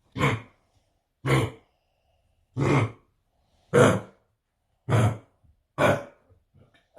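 A Labrador puppy coughing six times, about once a second, each cough short and separate: the cough of kennel cough, an infection of the throat that the owners first took for vomiting.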